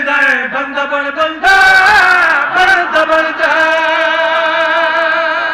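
A man's voice chanting a loud melodic recitation. It breaks off briefly about a second and a half in, then holds a long wavering note through the second half.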